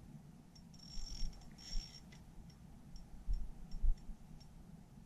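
Faint, irregular ticking and handling noise from a fishing rod and reel being worked while a large fish is played, with two soft knocks about three and a half seconds in.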